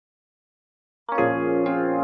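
Silence, then about a second in a sustained synthesizer chord comes in suddenly, with another note struck about half a second later and ringing on: the channel's intro music.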